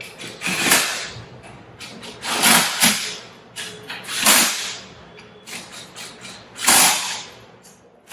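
Power driver running in the manifold bolts of an air-operated double-diaphragm pump in five short bursts, with lighter clicks of tool and bolts between.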